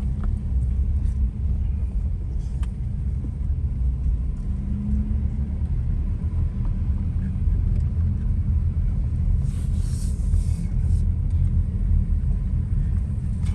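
Car driving, a steady low road rumble, with a brief hiss about ten seconds in.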